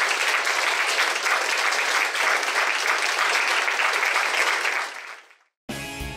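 Audience applauding at the end of a talk: dense, steady clapping that fades away about five seconds in. Music with a beat starts just before the end.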